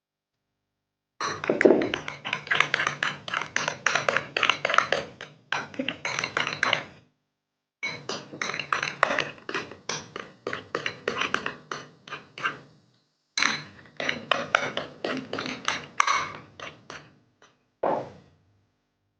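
Fluffy butter slime being stirred in a bowl as borax activator is worked in: a fast run of sticky clicking, tapping and squelching. It comes in three stretches with brief silences between, then one short burst near the end.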